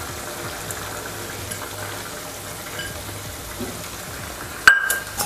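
Spiced rabodi gravy with fresh spring onions cooking in a kadhai over a gas flame, a steady sizzle and bubble. Near the end a single sharp metallic clink rings briefly.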